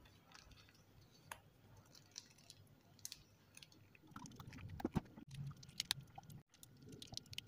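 Faint scattered clicks and soft squishy ticks of a plastic sachet of sweetened condensed milk being squeezed as it is poured into a pan of batter. A soft knock comes about five seconds in.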